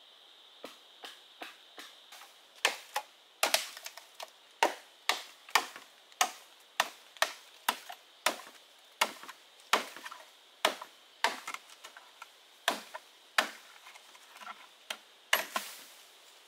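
Repeated chopping strikes on wood, about two a second at an uneven pace, each a sharp crack with a short ring. A steady high-pitched hum continues behind them.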